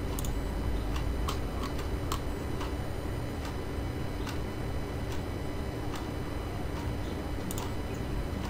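Scattered computer mouse clicks, a second or two apart at irregular times, over a steady low hum.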